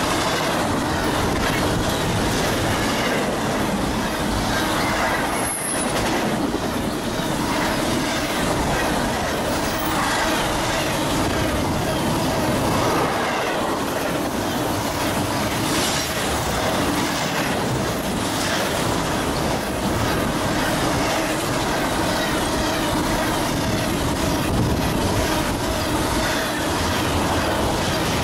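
Double-stack container freight train rolling past: a steady rumble and rattle of the well cars' wheels on the rails.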